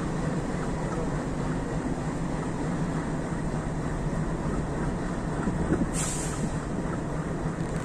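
Steady low rumble of a passenger train. About six seconds in there is a short hiss, like air being let out.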